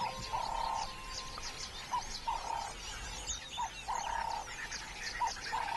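Savanna ambience full of small birds chirping. Through it runs a repeated two-part animal call, a short note then a longer buzzy one, about every second and a half.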